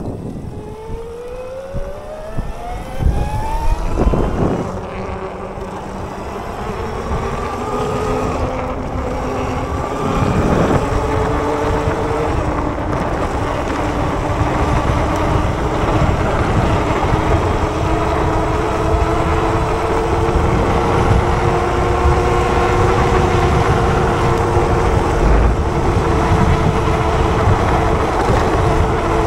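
Bafang BBSHD mid-drive e-bike motor whining under power, its pitch rising over the first few seconds as it accelerates, then holding a steady whine at speed. A steady low rumble runs beneath it, with a couple of thumps, about four seconds in and again around ten seconds.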